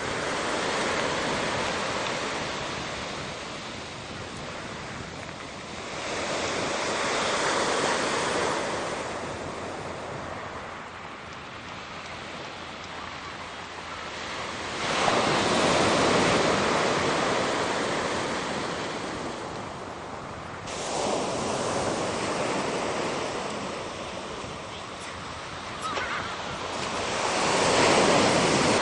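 Sea waves breaking on the shore, a surge of surf every five to seven seconds, each swelling and then washing back down.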